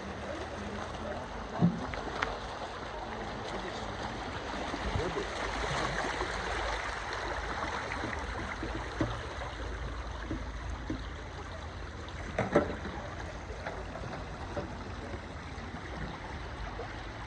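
Steady rush of water from the Lech river at the Lechfall waterfall, swelling slightly partway through. A couple of brief louder sounds stand out, one early and one later.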